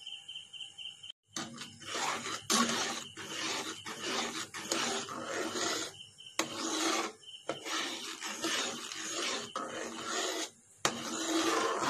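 Flat steel spatula scraping and stirring a thick milk-powder and sugar-syrup mixture around a kadai: repeated rasping strokes, a little more than one a second, starting about a second in.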